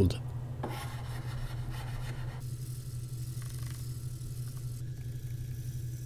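Hand filing of a steel knife blade: a flat file rasping in strokes along the bevel, over a steady low hum.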